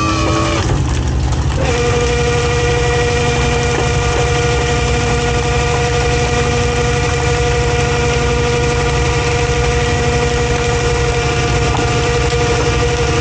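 Fishing boat's engine running steadily, with a steady whine over it that shifts in pitch in the first couple of seconds and then holds.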